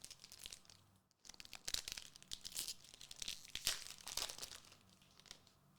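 Foil booster pack wrapper crinkling and crackling as it is handled and torn open, loudest from about a second in until near the end.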